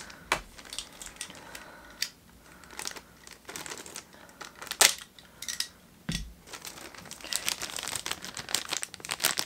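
A shiny black blind bag crinkling and crackling as it is handled and opened, in scattered crackles with one louder one about halfway through, growing denser near the end.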